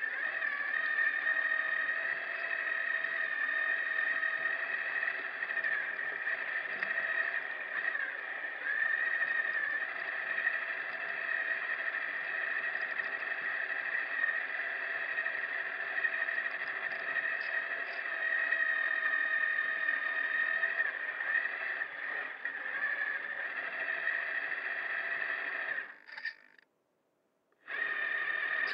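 Small electric motors whining steadily, with several fixed tones. The whine cuts out for about a second and a half near the end, then resumes.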